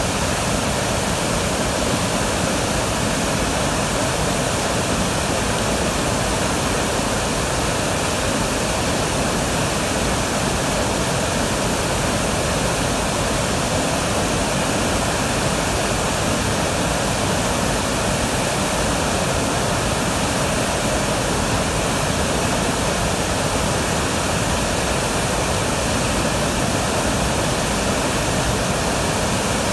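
Large waterfall in flood, brown muddy water pouring over a rock ledge onto boulders: a loud, steady rush of falling water.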